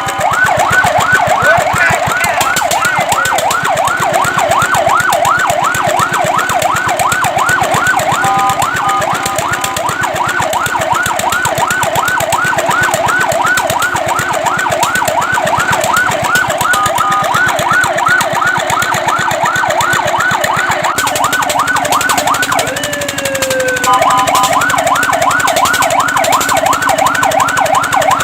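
Fire truck's electronic siren on a fast yelp, its pitch sweeping up and down about three to four times a second. It is broken twice by brief steady tones and, about three-quarters of the way through, by a quieter slow falling sweep before the yelp resumes.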